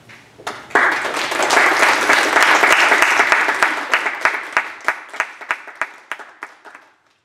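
Audience applauding: clapping breaks out about a second in, stays dense for a few seconds, then thins to scattered claps and stops near the end.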